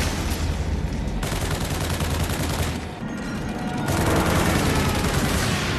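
Sustained rapid gunfire, many guns firing in a continuous barrage. It eases briefly about halfway through, then grows louder again.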